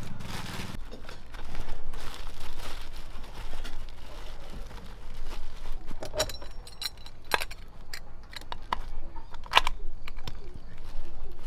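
Blue plastic bag crinkling as pork is pressed down inside a stainless steel sausage mold, then a few sharp metal clicks and clinks from about six seconds in as the mold's metal press plate and clamp are fitted.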